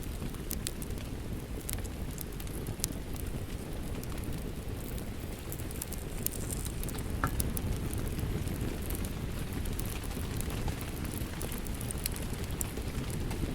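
Fireplace fire crackling with scattered sharp ticks and pops over a steady, even rush of rain.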